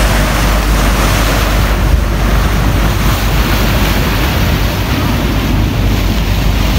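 Wind buffeting a phone's microphone aboard a moving boat at sea, a steady loud rush with the wash of water beneath it.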